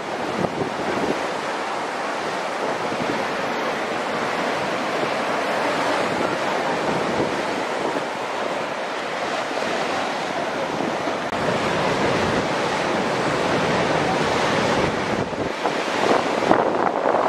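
Ocean surf breaking against and washing over a rocky shoreline: a continuous rush of white water that grows a little louder and choppier near the end.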